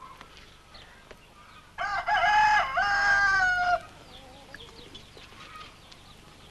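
A rooster crows once, a single call of about two seconds that starts about two seconds in, wavering at first and then held on a steady pitch.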